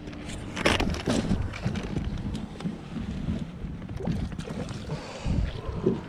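Wind rumbling on the microphone, with scattered knocks and rustling as gear is handled on a fishing boat and the landing net is picked up.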